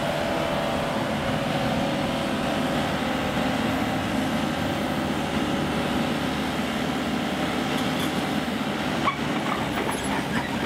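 Diesel engines of a JCB mini excavator and a truck-mounted loader crane running steadily. A sharp knock comes about nine seconds in, followed by a few light metal clanks.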